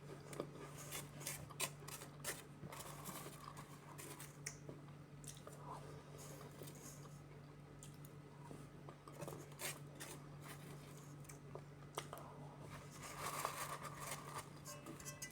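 Eating sounds at close range: many small, sharp clicks and light scrapes at irregular intervals, with some soft crunching, over a steady low hum.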